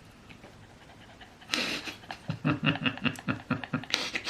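A person laughing: a sharp breath, then a quick run of about eight 'ha' pulses, and another breath near the end.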